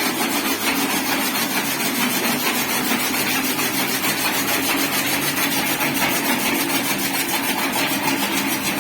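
An engine or motor running steadily at an even pitch.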